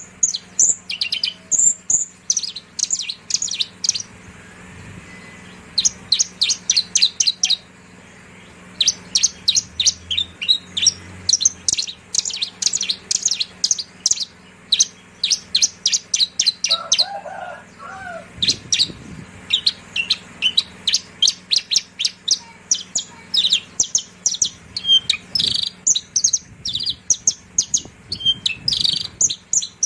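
Javan bushlark (branjangan) singing: fast runs of short, high chirping notes in phrases broken by brief pauses, over a faint steady hum.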